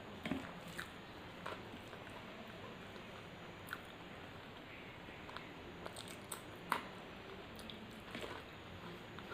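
A person chewing food close to the microphone: soft wet mouth sounds with short, sharp clicks scattered irregularly, the loudest about two-thirds of the way through, over a steady low hiss.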